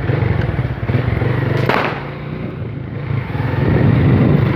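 Honda Titan motorcycle's single-cylinder engine running on the move, with a brief clatter about one and a half seconds in. The engine eases off for about a second, then picks up again near the end.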